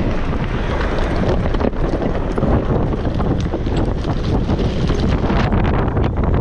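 Vehicle driving over a rough, stony off-road track: wind buffets the microphone over a steady low rumble, with many short clicks and knocks from tyres on loose stones.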